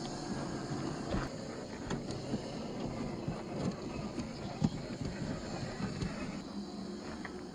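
Scale RC crawlers' electric motors and gearboxes running, with small clicks and crackles of their tyres rolling over gravel and loose rock.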